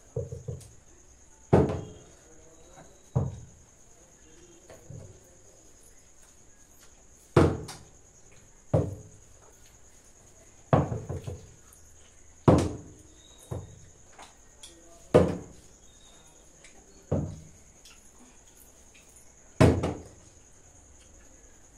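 Partly filled plastic bottle flipped again and again, landing on a cloth-covered table: about ten sharp thuds, one to two and a half seconds apart.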